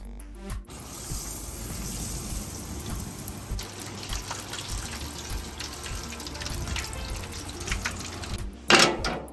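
Beer-battered fish frying in hot oil, a steady sizzle, with a short, much louder burst near the end.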